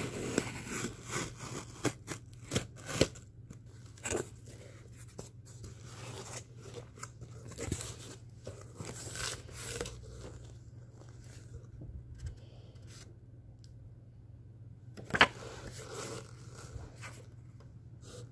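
A blade slitting packing tape on a cardboard shipping box, with sharp clicks and scratches, then cardboard flaps and tissue paper rustling and crinkling as the box is opened. There is one louder sharp snap about fifteen seconds in.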